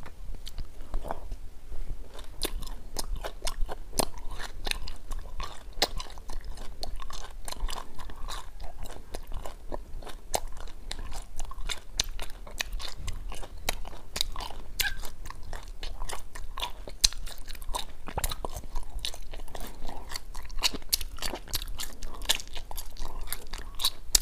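Close-miked chewing of wax bottle candy, the wax shells cracking and crunching between the teeth in many sharp clicks throughout.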